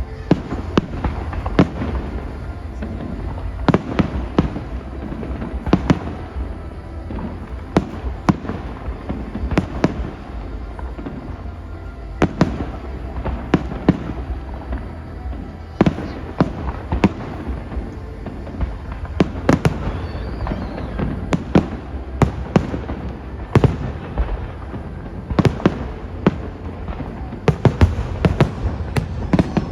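Fireworks display: aerial shells bursting in an irregular series of sharp bangs, several every couple of seconds.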